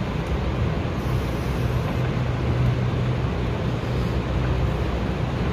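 Steady low rumble and hiss of airport terminal background noise.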